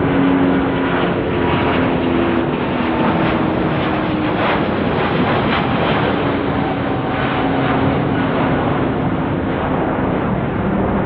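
Airbus A350-941's Rolls-Royce Trent XWB jet engines at takeoff thrust as the airliner climbs away overhead: a loud, steady jet noise with a rough crackle that is strongest around the middle, easing slightly near the end.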